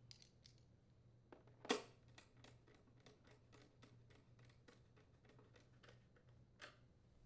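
Faint, scattered clicks and taps of a hand nut driver on the blower housing cover bolts of a small engine as they are threaded in and tightened, with one sharper click a little under two seconds in.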